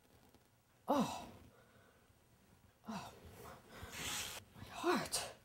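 A woman gasping and sighing for breath. There is a short falling groan about a second in, breathy gasps in the middle, and another falling groan near the end: a show of heart trouble.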